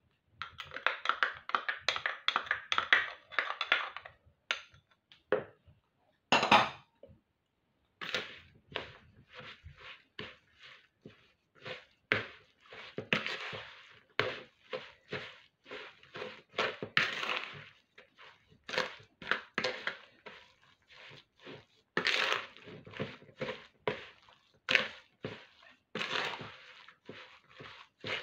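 Hand mixing a thick, wet conkie batter of grated pumpkin, coconut and cornmeal in a plastic bowl: irregular squelches and thunks of the mixture against the bowl, a few a second, after a denser stretch of stirring at the start.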